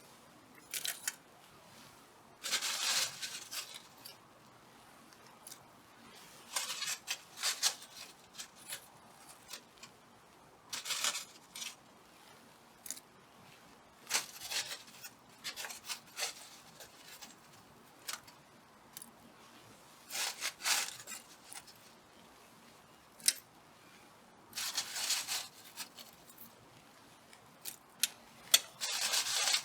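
Repeated short bursts of scratchy noise, each lasting about a second, every few seconds, with sharp clicks in between.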